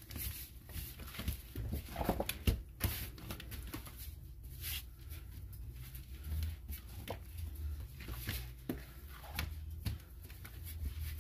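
Hands kneading, pressing and pulling a ball of bread dough on a floured plastic cutting board: soft, irregular taps and knocks, over a low steady hum.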